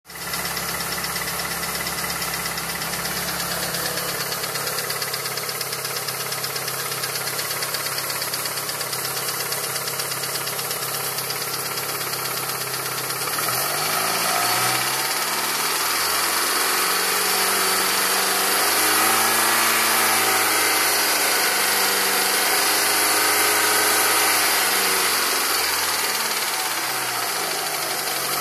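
Mitsubishi Lancer Evolution's turbocharged 4G63 inline-four idling with a fast, steady ticking that seems to come from around cylinder #4, cause unknown to the owner. About halfway through the engine is revved up, held at higher revs, then drops back to idle near the end.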